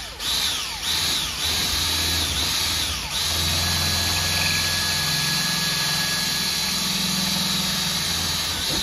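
Cordless drill with a bit drilling out the primer pocket of a brass case stuck in a resizing die, the first step in removing the stuck case. The motor speed dips and picks up a few times in the first three seconds, then runs steady until it cuts off at the very end.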